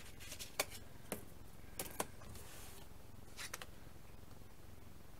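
Light handling noise of a brass photo-etch fret in its plastic sleeve: a few short sharp clicks and crinkles and a brief soft rustle over a faint steady room hum.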